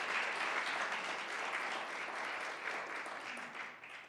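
Audience in a meeting room applauding, the clapping dying away near the end.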